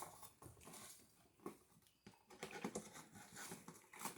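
Faint, scattered light clicks and taps of plastic toy packaging being handled as the toy is worked loose from its box.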